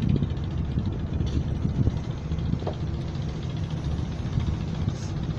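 A wooden fishing boat's engine running steadily under way, a low, even drone.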